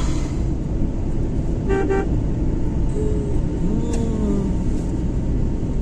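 Steady road and engine rumble of a car driving, heard from inside, with one short vehicle-horn toot about two seconds in.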